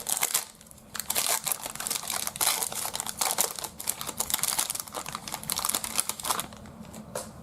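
Plastic wrapper of a baseball card value pack crinkling and crackling as it is torn open, with many small rapid crackles; it dies down about six and a half seconds in.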